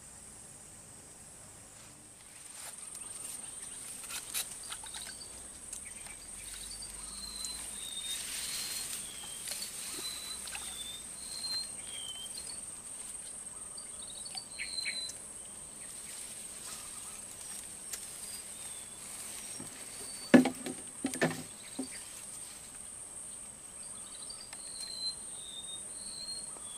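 Steady high-pitched drone of insects in the swamp vegetation, with short bird chirps repeating over it and two or three loud knocks about twenty seconds in.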